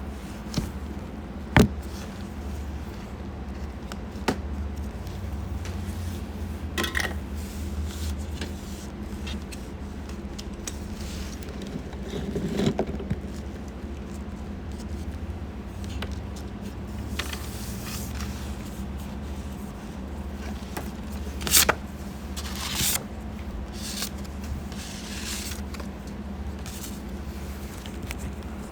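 Small clicks, taps and scrapes of paint bottles and tools being handled while airbrush paint is mixed, with two sharper clicks about a second and a half in and near the middle, over a steady low hum.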